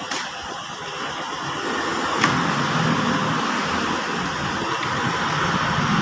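Steady mechanical running noise, a hiss over a low hum, with a sharp click a little over two seconds in.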